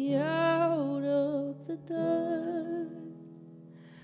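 A woman singing a held, wavering vowel over sustained accompaniment chords; the voice stops after about a second and a half, and the chord changes and rings on alone, fading away.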